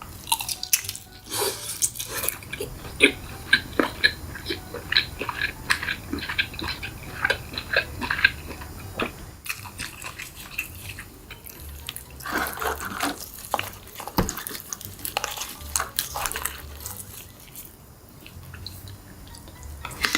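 Crab being eaten close to the microphone: many quick cracks and clicks of shell, with wet sucking and chewing sounds.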